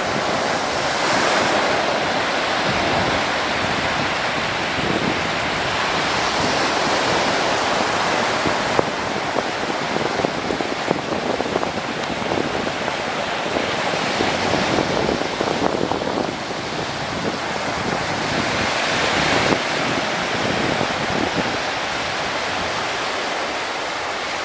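Small waves breaking on a sandy shore: a continuous surf hiss that swells and eases every few seconds.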